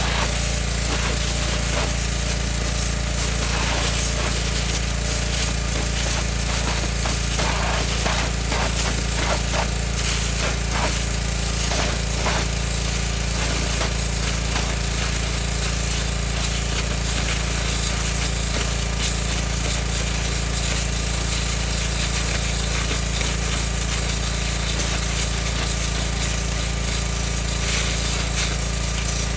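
Northstar 4000 PSI pressure washer running steadily, its engine under the loud hiss of the high-pressure jet blasting into oak stump roots and dirt, with a stretch of crackling spatter in the middle.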